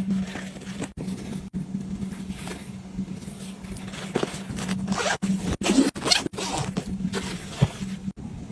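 A zipper on a bag or pouch being pulled in several quick strokes, the loudest about five to six seconds in, over a steady low hum.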